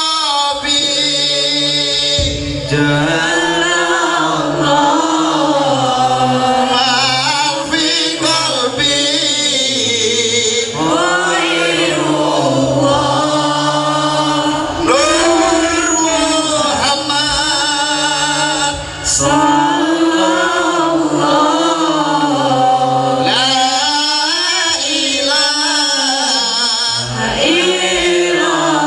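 A man singing an Islamic devotional song (sholawat) into a microphone through a PA, with long wavering held notes and ornamented melodic runs, over low steady held notes underneath.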